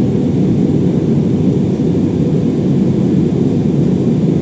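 Steady low rumble of an airliner's engines and airflow, heard from inside the passenger cabin during descent.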